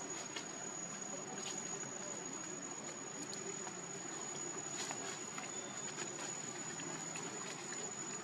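Insects droning in the forest: one steady high-pitched tone held throughout, with faint scattered clicks over a soft background hiss.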